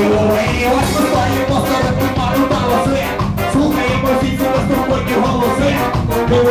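Ska-punk band playing live with drums, bass and guitars, driven by a fast, steady beat of cymbal strokes.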